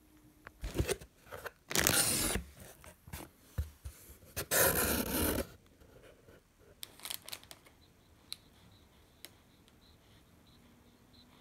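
Two loud bouts of rustling and crinkling, the second about four seconds in, followed by a few light clicks and taps.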